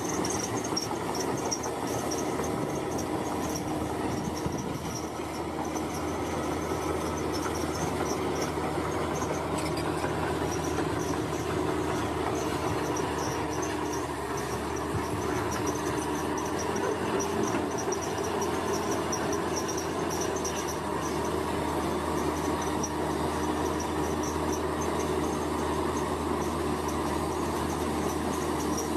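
Heavy earthmoving machine's engine running steadily while it works, pushing soil, with a high pulsing chirp above it.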